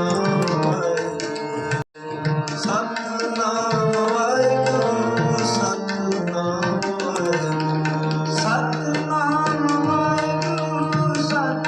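Sikh kirtan music: tabla playing steadily under held harmonium-like notes, with wavering vocal or melodic lines over them. The sound drops out completely for a split second about two seconds in.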